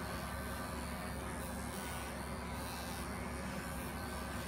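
Electric animal clippers running with a steady hum while shearing an angora rabbit's wool.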